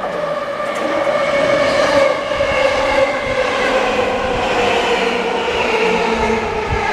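Yamanote Line E235-series electric train pulling in, its traction motor whine falling steadily in pitch as it slows, over rolling wheel-on-rail noise.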